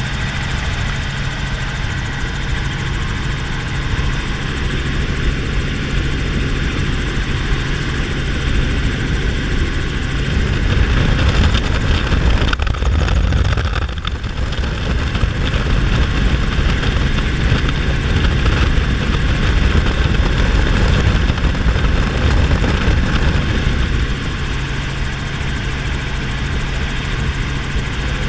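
Small helicopter in flight, heard from inside the cabin: a steady drone of engine and rotor with wind noise, swelling louder through the middle stretch before settling back.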